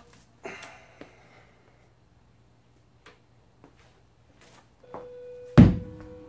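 Hands rubbing chalk together, then a few faint clicks and knocks over a low steady hum. Near the end comes a single loud sharp thump, after which steady held tones begin.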